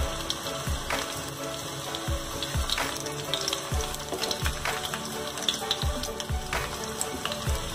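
Hot oil sizzling and crackling with small pops around stuffed dough parcels shallow-frying in a pan on low flame. Background music with a steady low beat runs underneath.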